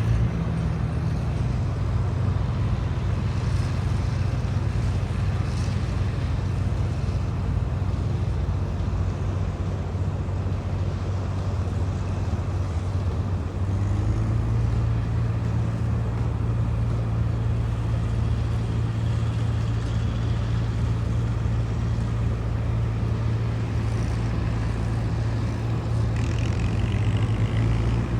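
John Deere tractor's six-cylinder diesel engine running steadily while pulling a small square baler through oat hay. The engine note shifts slightly about halfway through.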